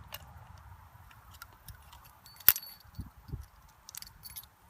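Metallic clicks and clinks from a Smith & Wesson .500 Magnum revolver being unloaded as the cylinder is opened and spent brass cases are handled. There is one sharp, loudest clink with a brief ring about halfway through, followed by two soft knocks.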